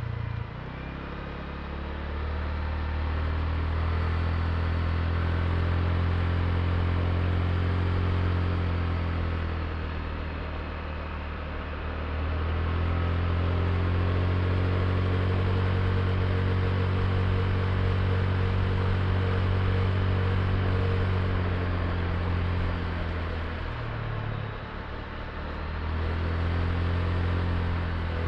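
Honda Click i scooter's single-cylinder engine running at steady throttle on the move, with road and wind noise. The engine eases off and drops in pitch briefly about ten seconds in and again near twenty-four seconds, then picks up again.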